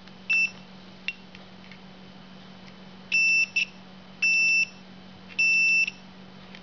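Multimeter on its continuity setting, beeping on and off as the probes bridge the ignition switch terminals: a short beep, a brief blip, then three half-second beeps. The continuity comes and goes, which the owner suspects is either a faulty ignition switch or the meter.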